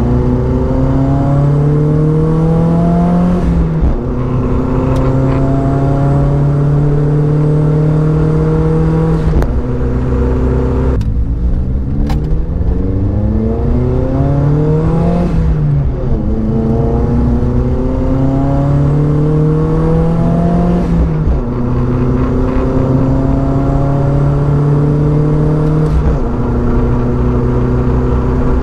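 Nissan Silvia S15's turbocharged SR20DET four-cylinder engine driving through the gears. The revs climb and hold, then drop back at gear changes about every five seconds, with the exhaust loud throughout.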